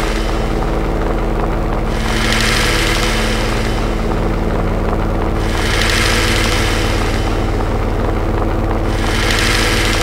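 Experimental noise music: a dense low drone of steady hum tones, with a hissing rush that swells and fades three times, about every three and a half seconds.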